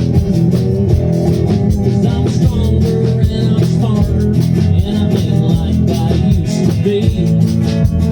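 Live country band playing an outlaw-country song with a steady beat and guitars, heard from off to the side of the stage rather than from the front.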